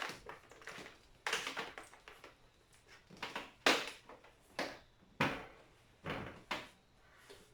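Handling noises: about half a dozen separate knocks and clunks of hard plastic as a small handheld steam cleaner and its parts are picked up and set down.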